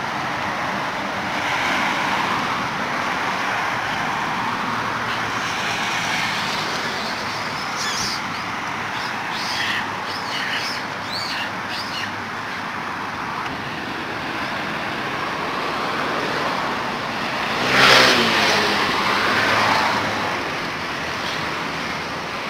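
Road traffic: cars driving past in a steady rush. A few short high chirps come about a third of the way in, and a brief loud pitched sound comes near the end.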